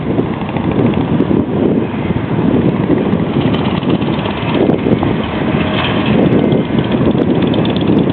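Wind buffeting the microphone: a loud, uneven low rumble with no steady pitch.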